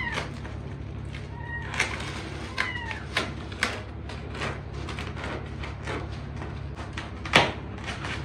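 Cardboard packaging being handled and torn open: rustles and clicks, with a few short high squeals in the first three seconds and one sharp knock about seven seconds in.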